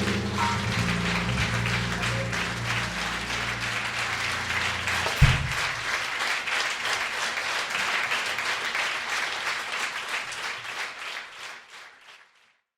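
Audience applauding at the end of a live bossa nova recording, fading out near the end. The last low notes of the music ring under it for the first few seconds, and there is a single thump about five seconds in.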